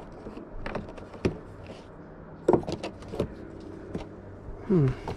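An old violin case being handled: several sharp clicks and knocks from its lid and metal latch. Near the end there is a short squeak that falls in pitch.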